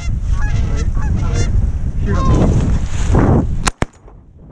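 Canada goose honks and clucks repeating, then two shotgun shots fired close together near the end.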